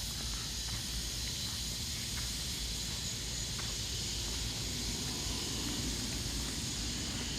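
Steady outdoor hiss, strongest in the high range, with a low rumble underneath and a few faint ticks.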